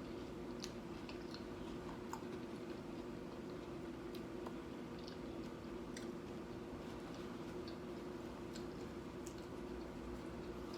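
Chewing a mouthful of tortilla-chip nachos: soft, scattered crunches and mouth clicks over a steady low hum.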